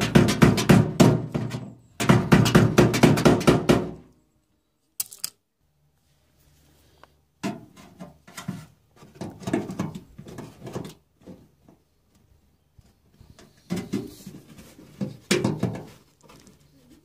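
Tools knocking and rattling against a washing machine's drum shock absorber and its mount while it is worked free: a fast run of knocks for about the first four seconds, a single click, then slower, scattered clunks and knocks.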